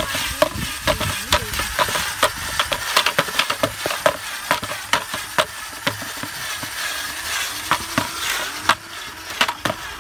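Black twine being wound at speed off a spinning plastic-bucket reel onto a drill-driven spool, making a continuous rasping noise full of rapid, irregular clicks.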